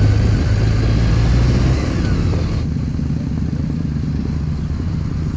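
Motorcycle engine running as the bike rolls along at low speed, a steady low drone that drops in level a little under two seconds in, as if the throttle eases off.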